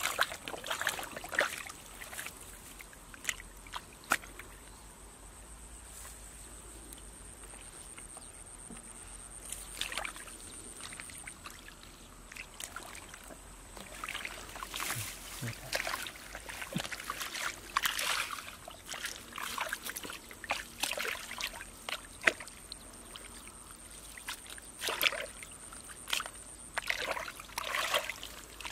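Hands digging and groping in shallow muddy water, making irregular sloshing and splashing with scattered short squelches, busier in the second half.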